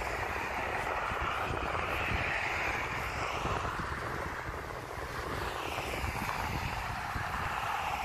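Road traffic going by: a steady rush of tyres and engines that dips slightly about five seconds in, then swells again as another vehicle passes.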